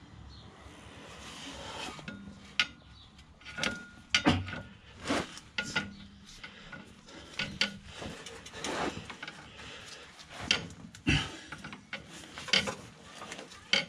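Metal clinks and knocks of a clutch pressure plate and disc being handled and shifted against the flywheel while they are lined up with a clutch alignment tool. They are irregular sharp clicks, beginning about two seconds in.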